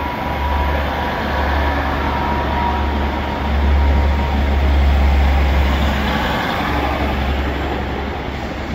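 Transport for Wales passenger train moving along the platform past the listener: a steady low rumble of engine and wheels that swells midway, with a faint steady whine in the first few seconds.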